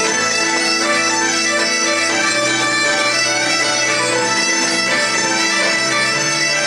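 Bagpipes playing a lively tune over steady drones, with fiddle and keyboard playing along.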